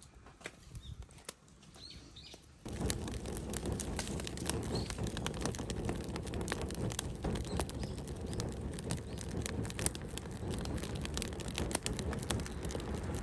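Wood fire crackling and popping under a cast-iron cauldron, a dense stream of sharp snaps. The crackling is sparse and quiet at first, then becomes much louder and busier about three seconds in.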